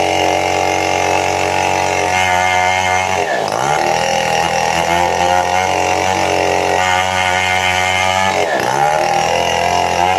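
Two-stroke chainsaw running at high revs while cutting sengon wood, its engine speed dipping sharply and recovering twice, about three and a half seconds in and near the end.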